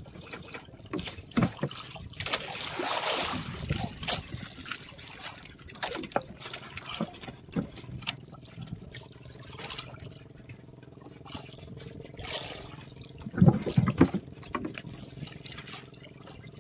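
Hand line being hauled in over the side of a small outrigger boat, with water trickling and splashing off the wet line and hull and scattered light knocks on the boat. Two loud thumps come about three-quarters of the way through.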